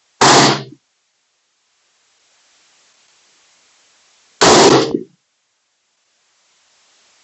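Radical Firearms AR-15 in .223 firing two single shots about four seconds apart, each a sharp crack with a short ringing tail.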